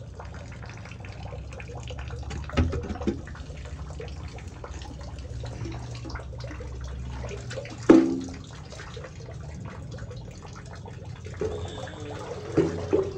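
Sewage water sloshing and splashing in a manhole as a worker moves and works in it, over a steady low rumble, with a few sharp knocks, the loudest about eight seconds in and several near the end.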